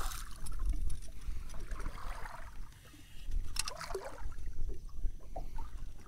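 A hooked redfish (red drum) thrashing and splashing at the surface beside a boat, with choppy water sloshing against the hull. A couple of sharp splashes come a little past the middle.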